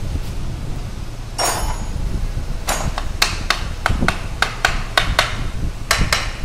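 Hand tools working the bolts of an engine's timing cover: a short metallic rattle, then a run of about a dozen sharp metal clicks, roughly three a second.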